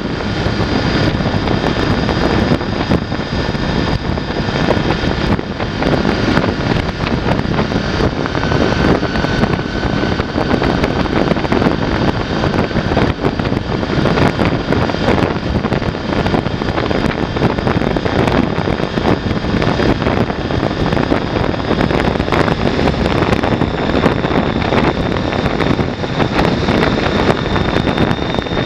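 Honda VFR800's V4 engine running at steady cruising speed, with loud wind rush over the bike-mounted camera's microphone. The sound is an even, unbroken rushing drone with a faint steady whine on top.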